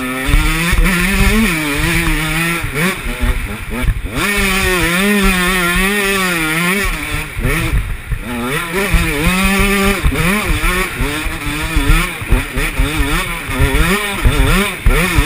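Motocross bike engine revving hard and backing off over and over as it is ridden round a dirt track: the pitch climbs in long pulls and drops at each shift or throttle release. It is heard from a helmet-mounted camera, with wind rumbling on the microphone.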